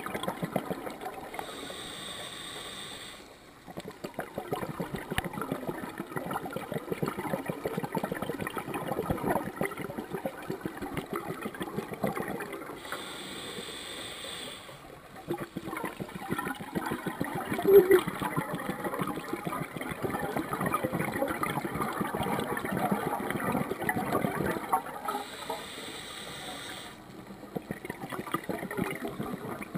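A scuba regulator breathing cycle heard underwater: three short hissing inhalations, each followed by a long stretch of exhaled bubbles gurgling up. A brief louder sound stands out about two-thirds of the way through.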